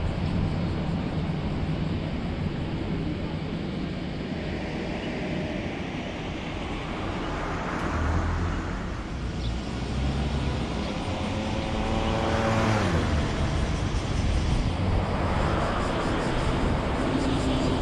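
A car driving through town traffic: steady low road and engine noise, with other vehicles passing by. About two-thirds of the way through, one passing vehicle's engine note drops in pitch as it goes by.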